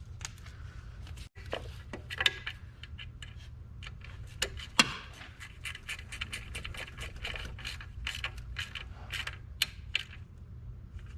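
Metal hand tools clicking and clinking in quick, irregular strikes while a 10 mm nut is fastened, with one sharper clack about five seconds in.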